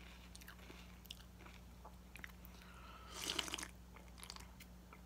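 Mouth-close chewing and crunching of cereal, with scattered small crunches, then about three seconds in a short, louder slurp as the cereal is drunk from the bowl.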